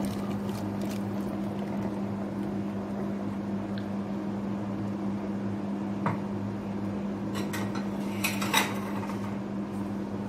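A few light clinks of a utensil against a metal cooking pot, about six seconds in and again around eight to nine seconds, over a steady low hum.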